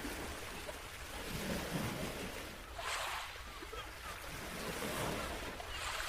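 Ocean surf: waves washing in as a steady rush that swells twice, about three seconds in and again near the end.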